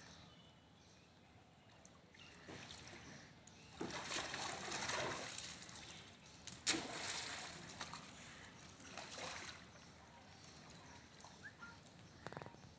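Macaques wading and playing in a shallow muddy pond, splashing and sloshing the water in several short bouts, with one sudden sharp splash a little past the middle.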